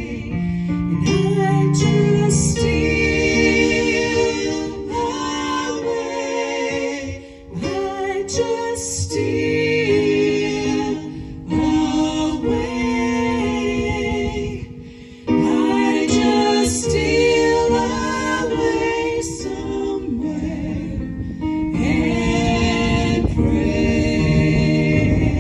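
Small group of women's and a man's voices singing a gospel hymn together in harmony, with held notes and short breaks between phrases.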